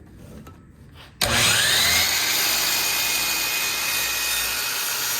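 An electric power tool's motor, most likely a saw, switches on about a second in. It spins up with a rising whine and then runs steadily at full speed.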